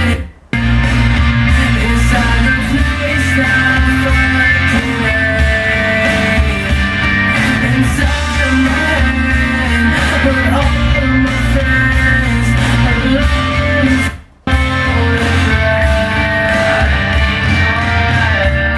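Rock song with guitar, singing and heavy bass played through a Technics SA-EX700 receiver and WB-W33 passive subwoofer. The music cuts out briefly twice, just after the start and about fourteen seconds in.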